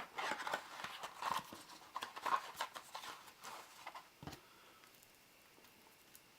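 Hands moving a deck of trading cards and its packaging on a table: a string of irregular taps, clicks and rustles, ending with a dull thump about four seconds in.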